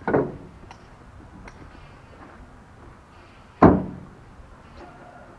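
Heavy natural stone blocks landing on the load in a small truck's bed as they are loaded by hand: two loud hard impacts about three and a half seconds apart, with a few faint clicks of smaller stones between them.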